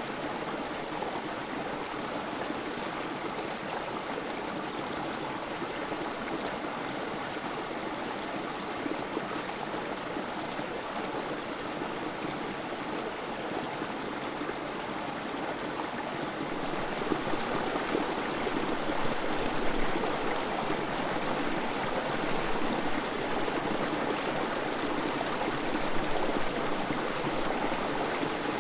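Creek water trickling and splashing over rocks in a small cascade: a steady, continuous babble that grows a little louder partway through.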